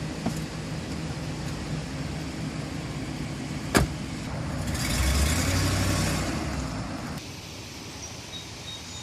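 A car engine running steadily, with one sharp click a little under four seconds in. A louder vehicle sound then swells for about two seconds and cuts off suddenly.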